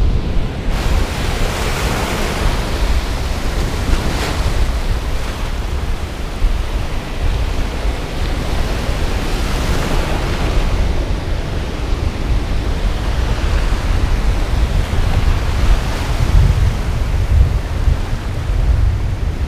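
Ocean surf breaking and washing up the beach, surging every few seconds, with wind buffeting the microphone as a steady low rumble.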